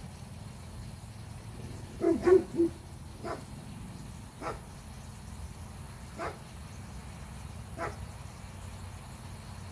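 Dog barking: a quick run of three loud barks about two seconds in, then fainter single barks roughly every second and a half.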